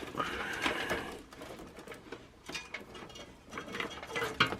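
Wires and cables being pushed around inside an open desktop PC case: rustling with irregular light clicks and taps against the case.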